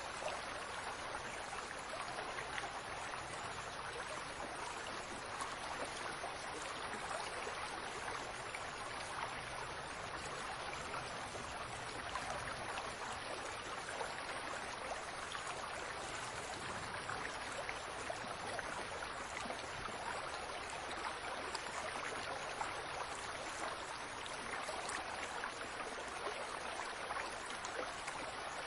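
Water from a fountain splashing and trickling steadily.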